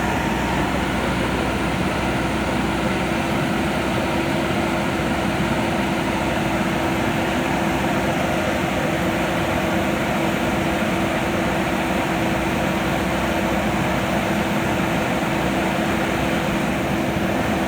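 JCB backhoe loader's diesel engine running steadily, an even drone with no revving or changes.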